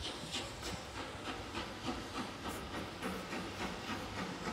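Exhaust beats of an approaching double-headed steam train: a steady chuffing of about three beats a second over a hiss.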